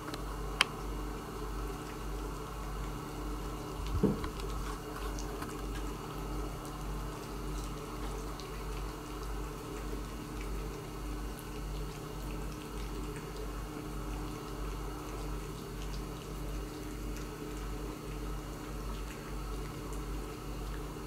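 A cat eating wet food from a small metal dish: faint wet lapping and chewing ticks over a steady low hum, with a couple of brief knocks in the first four seconds.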